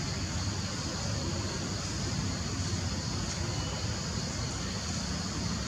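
Steady outdoor background noise: a low rumble under a constant high hiss, with no distinct calls or knocks.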